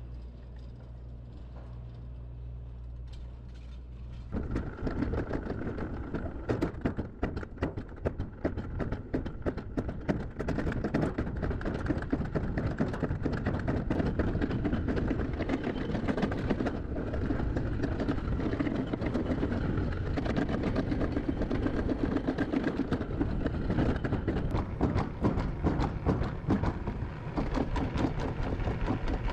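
Summer toboggan sled running down a stainless-steel trough track: a dense, steady rattle and rumble of its wheels against the metal, starting about four seconds in, after a quieter low hum.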